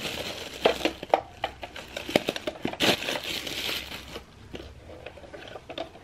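Thin clear plastic bag crinkling and rustling as it is pulled off a small plastic space heater, the crackling dying down after about four seconds.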